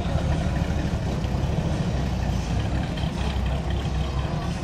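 Low engine rumble of a 1920s-style hot rod sedan driving slowly past at low revs.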